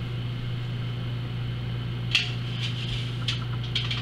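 A plastic breadcrumb canister being opened and handled: a sharp click about halfway in, then lighter clicks and scrapes. A steady low hum runs underneath.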